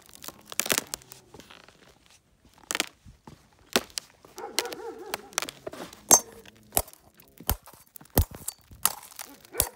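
Dogs barking and whining, the pitched calls strongest from about four and a half to six seconds in, amid many sharp clicks and knocks scattered throughout.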